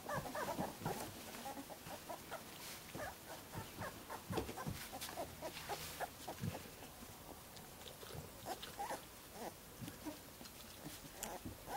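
Greater Swiss Mountain Dog puppies whimpering in many short, frequent squeaks.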